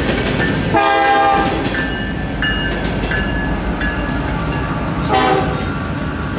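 Union Pacific freight locomotive horn sounding two short blasts, about a second in and about five seconds in, over the steady rumble and wheel clatter of passing freight cars. Between the blasts, the electronic bell of the grade crossing dings repeatedly.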